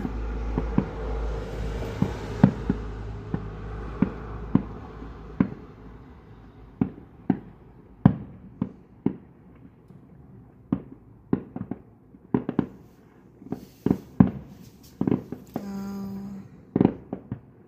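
Fireworks display: a long, irregular run of sharp bangs from aerial shells bursting, a few each second, with a low rumble under the first few seconds.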